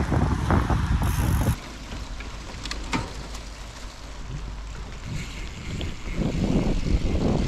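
Wind buffeting the microphone of a camera on a moving bicycle, a low rumbling rush. About one and a half seconds in it drops abruptly to a quieter stretch with a few sharp clicks, and the rumble builds again near the end as riding picks up.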